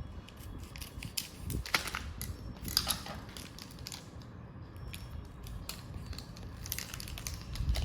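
A chocolate bar's wrapper being handled and pulled open, crinkling and crackling unevenly, with a few sharper cracks.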